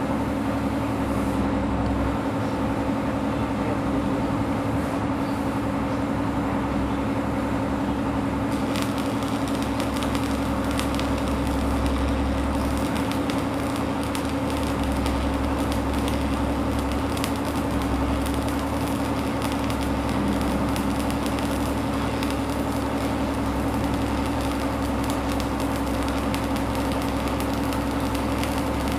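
Stick (electrode) welding arc crackling and sputtering steadily as a vertical weld is run, starting about eight or nine seconds in, over a steady low hum.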